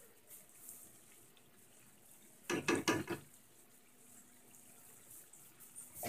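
Brief clatter of cutlery and dishes, a few quick clinks about two and a half seconds in, over a faint steady hum.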